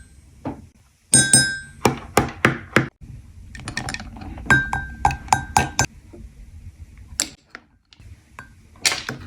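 A spoon clinking against a ceramic mug, in quick runs of about three knocks a second with a brief ringing after each, as mug-cake batter is mixed. A few single knocks follow near the end.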